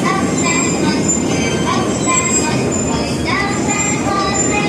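Amusement arcade din: many short electronic tones and chirps at different pitches, a few sliding upward, from game machines and rides over a steady background noise.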